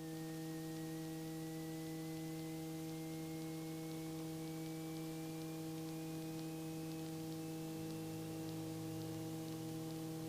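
Steady electrical hum with a faint whine slowly rising in pitch, heard over a helicopter's headset intercom as the helicopter gets ready to fly.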